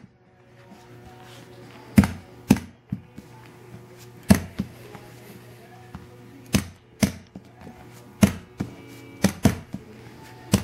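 Handheld stapler shooting staples through mink fur pieces into a wooden board, about a dozen sharp clicks at irregular intervals, a few in quick pairs. Faint background music underneath.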